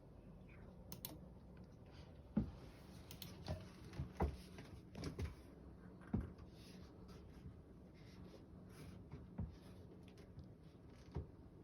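Scattered light clicks and knocks at an uneven pace, a few louder than the rest, over a faint steady hum.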